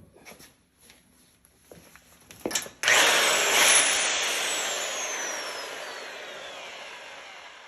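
Milwaukee Super Hawg 1680-20 right-angle drill with a newly fitted chuck, test run: after a few handling clicks it starts suddenly about three seconds in, then is released and coasts down, its whine falling steadily in pitch and fading over several seconds. The test checks that the gears were not damaged by removing the old chuck.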